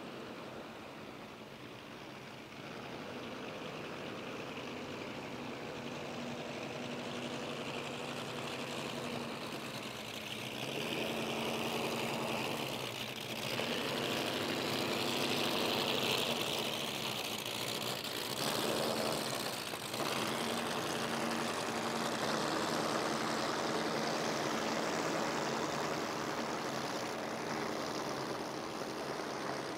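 Boat engines running at low speed on the river, with the hiss of water wash; the sound grows louder over the first half as a boat comes close.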